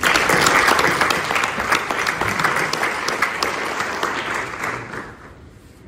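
Audience applauding, loudest at once and dying away over about five seconds.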